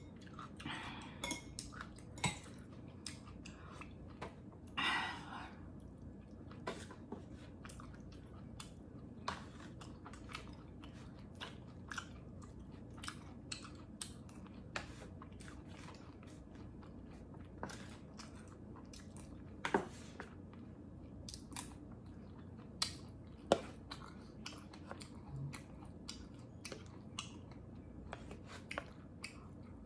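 A person chewing a mouthful of soft, creamy fettuccine with chicken and broccoli, close to the microphone: many short wet clicks and smacks from the mouth, with now and then a louder click.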